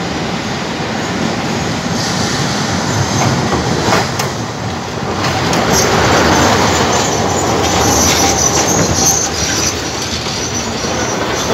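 Alexandria Raml tram passing close by, its steel wheels rolling on the rails. The noise swells about five seconds in, with a high wheel squeal for a few seconds, and eases a little near the end.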